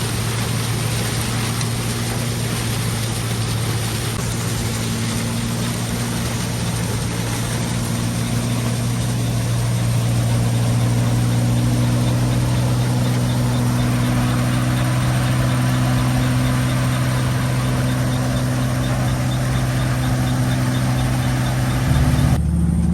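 John Deere 95 combine running steadily with a continuous engine hum and mechanical clatter, getting a little louder about halfway through. The sound changes abruptly near the end.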